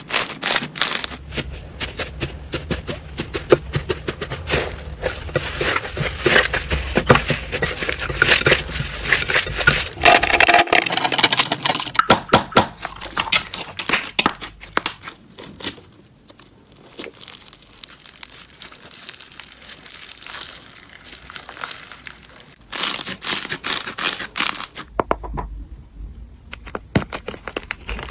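Slime being handled and squished: dense, sticky crackling and popping clicks that vary in texture, with a brief pause near the end.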